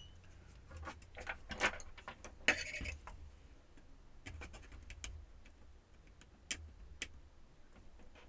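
Scattered light clicks and short metallic rattles as tiny screws are worked out of a laptop's casing by hand with a small Phillips screwdriver, over a faint steady low hum.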